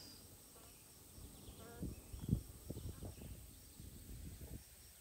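A wooden spit knocking and creaking softly in its forked stick supports as it is turned by hand, loudest about two seconds in, over a steady high chirping of insects such as crickets.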